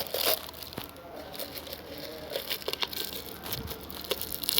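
Plastic crinkling and rustling in irregular small crackles as pieces of cut plastic are handled.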